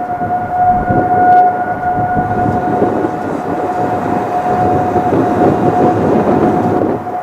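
Whelen WPS-3016 electronic warning siren sounding a single steady tone between its recorded test announcements, over a low rumbling noise that swells and fades.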